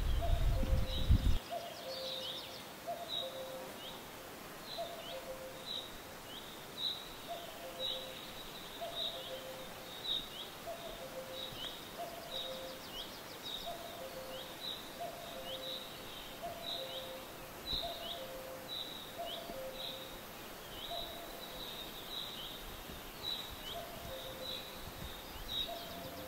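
Birds singing: a short high chirp repeating about twice a second, over a low two-note call repeating about once a second. A brief low rumble comes in the first second or so.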